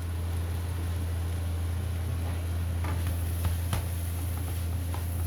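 Rice vermicelli frying in a wok, an even hiss over a steady low hum. From about three seconds in a few sharp clinks of the spatula against the pan.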